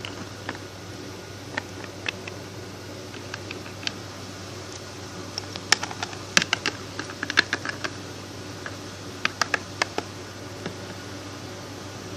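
Irregular light clicks and taps of small plastic toy figures being moved and set down on a hard surface, coming in scattered clusters over a steady low background hum.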